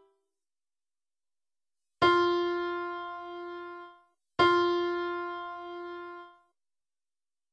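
Piano sounding one pitch, a unison rather than a chord, struck twice about two and a half seconds apart; each time it rings and fades for about two seconds, then stops abruptly. It is an ear-training test item played twice for identification.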